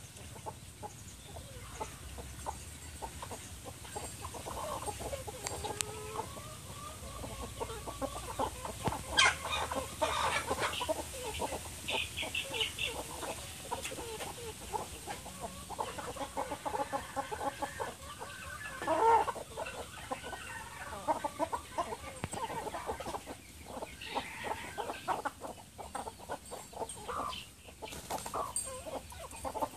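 A flock of chickens clucking and calling throughout, with a few louder calls standing out about nine and nineteen seconds in.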